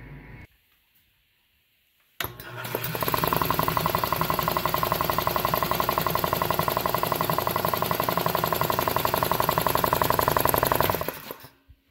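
Belt-driven single-cylinder air compressor pump and its electric motor starting abruptly about two seconds in and running with a rapid, even pulse of piston strokes, then stopping about eleven seconds in.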